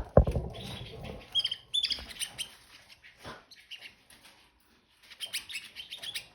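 Caged canaries giving short high chirps in the first couple of seconds, with light ticking and rustling from the birds moving and feeding in the cage.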